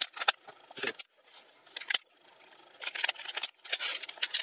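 Plastic clicks and rattling from an old Dell RT7D20 keyboard being handled: a few separate clicks in the first two seconds, then a quick run of clicks and rustling near the end.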